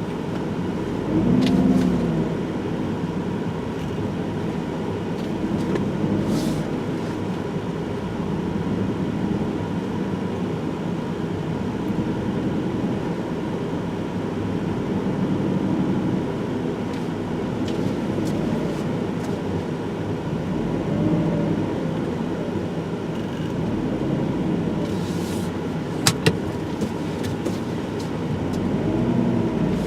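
Car engine and road noise while driving, the engine's pitch rising and falling a few times as it speeds up and slows. Two sharp clicks sound close together near the end.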